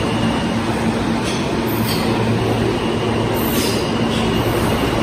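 New York City subway train running past the platform: a steady rumble with a motor hum, and short high-pitched squeals a few times.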